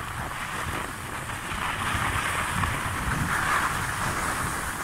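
Wind rushing over a handheld smartphone's microphone and skis hissing over groomed snow during a downhill run, louder from about two seconds in.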